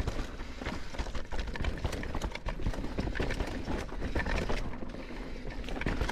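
Mountain bike descending a rough dirt trail: tyres rolling over rocks and roots, with the bike rattling and clattering in a constant run of sharp knocks over a low rumble.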